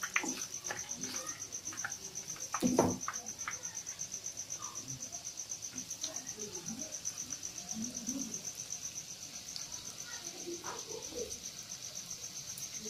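A cricket chirping in a steady, fast pulsing high trill, over pan-frying sounds of balls bubbling in hot oil; a wooden spatula knocks against the pan once, about three seconds in.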